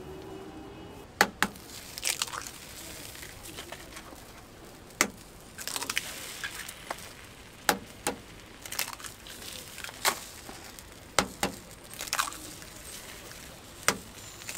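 Eggs being cracked one after another against the edge of a metal egg-bread mould: sharp cracks roughly once a second, some followed by a short crunch of shell.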